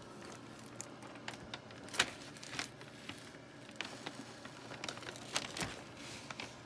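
Light handling noises: scattered clicks and knocks with some crinkling, the loudest knock about two seconds in.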